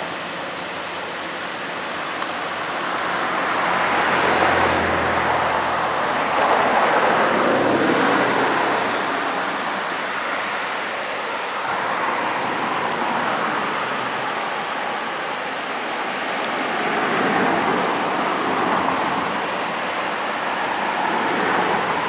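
Steady rushing outdoor noise that swells and fades several times, with a low hum about four to five seconds in: shallow river water running over a rocky shoal, mixed with road traffic passing.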